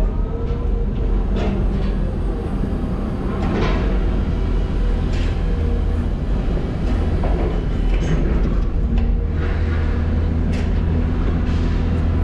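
Diesel engine of heavy cargo-handling machinery running steadily under load, with scattered metal knocks and scrapes.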